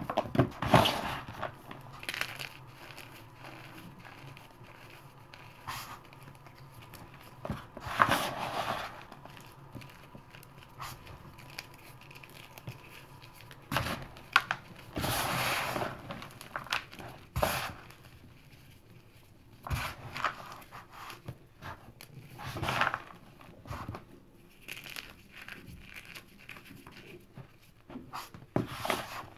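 Hands crumbling and crushing crispy chunks of gym chalk and cornstarch: irregular dry crunches and crackles, with a longer crunching rub about halfway through.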